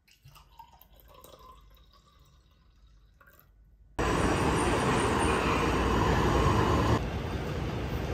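Wine poured from a glass bottle into a flute glass: a faint trickle. About halfway through it cuts abruptly to loud, steady street noise that drops a little near the end.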